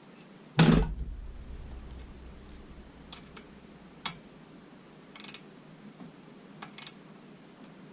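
A sharp knock about half a second in, then scattered light clicks and short rattles of hand tools being worked on a rocker arm's adjusting bolt and lock nut.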